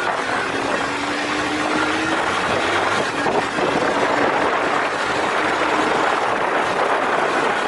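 Motorcycle riding at speed, with wind rushing over the microphone and the engine's hum faintly underneath at a near-steady pitch.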